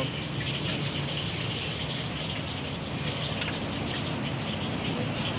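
Steady background din of a street-side food stall: a low hum under a constant hiss, with one light click about three and a half seconds in.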